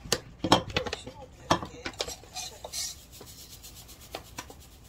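Sugar being poured from a paper packet into a glass measuring cup, a grainy rasping hiss with the packet rustling. A few sharp knocks and clicks come in the first two seconds as the cup and packet are handled.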